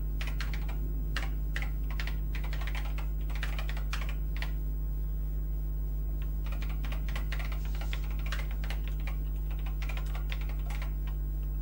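Typing on an Acorn Electron's keyboard: rapid, irregular key clicks as a command line is entered. A steady low electrical hum runs under it.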